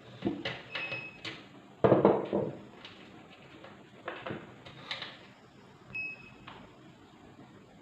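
Clicks, knocks and a short clatter from rice cooker parts being handled during disassembly, with two brief high-pitched beeps.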